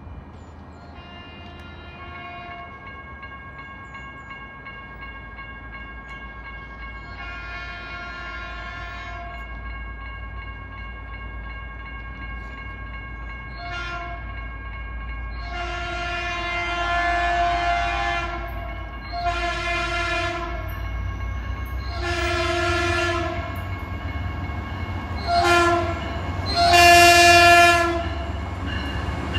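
Diesel passenger locomotive's air horn sounding a series of blasts as the train approaches. It is faint at first, then comes as several long blasts with two short ones, each louder than the last. Under it, the low rumble of the oncoming train rises.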